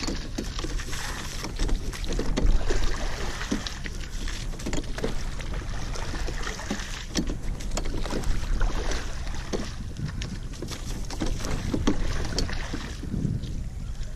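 Single racing scull being rowed: water washing along the hull and oar splashes, with irregular knocks of the oars and rigging, over wind buffeting the camera's microphone.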